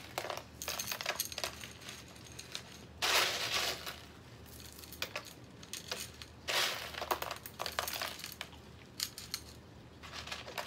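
Small pebbles poured into a glass bowl, rattling and clinking against the glass in two short pours, one about three seconds in and one about six and a half seconds in, with scattered clicks of single stones in between.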